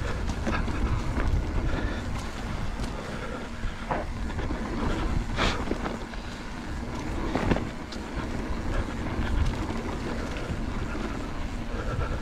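Wind rumbling over the camera microphone as a mountain bike rides a rough dirt trail, with the bike rattling and knocking over bumps; the sharpest knocks come about four, five and a half, and seven and a half seconds in.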